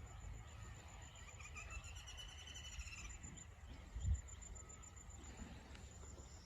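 Faint rural outdoor ambience: a steady high insect trill with low rumble beneath. One drawn-out arching call rises and falls between about one and three seconds in. A short low thump comes about four seconds in.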